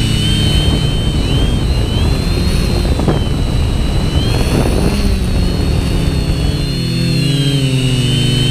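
Cinetank Mk2-L quadcopter's electric motors and propellers heard from the onboard camera: a steady whine with wavering pitch, mostly drowned for several seconds by rough rushing wind noise on the microphone, with the clear motor tone coming back about seven seconds in.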